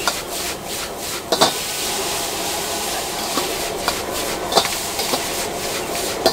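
A metal ladle scraping and stirring noodles around a wok, with a few sharp knocks of the ladle against the pan, over a steady hiss from the high gas flame under the wok.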